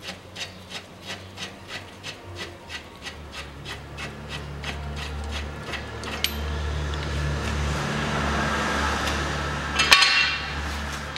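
Ratchet wrench with an 18 mm socket clicking about three times a second as the last bolt of a steel cross brace is undone, turning into a steadier rasping as the bolt runs out. About ten seconds in the freed brace comes off with a loud metallic clank.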